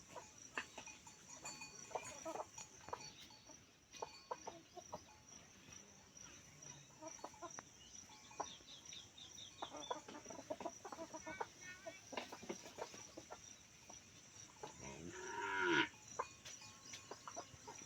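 Desi chickens clucking in a run of short calls, with one louder, drawn-out call that builds and stops abruptly near the end.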